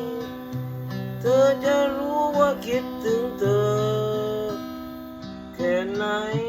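Strummed acoustic guitar with a voice singing a slow Thai song over it, in sung phrases from about a second in and again near the end.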